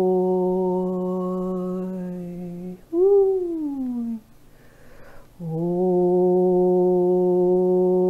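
A woman's voice toning in light language: a long steady hummed note, a short downward-sliding note about three seconds in, then after a brief pause another long steady note at the same pitch.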